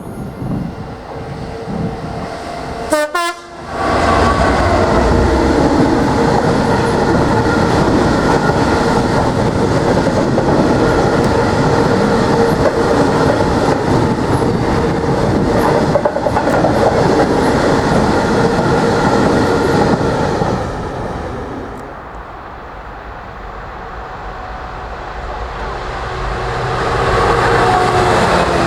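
A freight train passing at speed, the wagon wheels rattling over the rail joints, with a brief horn sound about three seconds in. The noise drops away a little after twenty seconds, and another train builds up near the end.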